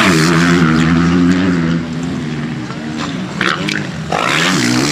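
Dirt bike engine running with a steady note that wavers with the throttle, dipping and then rising again near the end.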